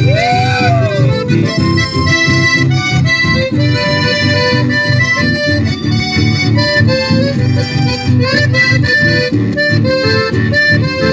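A live band playing an instrumental chamamé tune: an accordion carries the melody over strummed acoustic guitars and a plucked double bass, with a steady rhythm.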